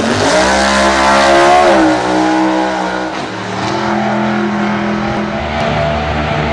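Drag-racing pickup's engine at full throttle, its pitch rising as it launches off the line, then dropping about two and three seconds in and settling into a steadier lower note.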